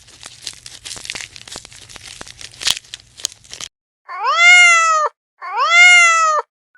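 A domestic cat meowing twice, each meow about a second long, rising, holding and falling in pitch. Before the meows, a few seconds of crackling, rustling noise.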